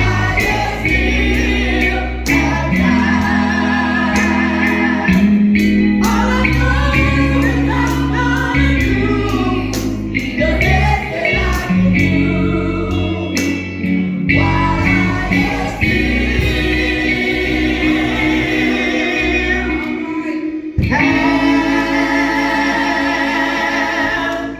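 Gospel music: several voices singing together over instrumental accompaniment with sustained bass notes.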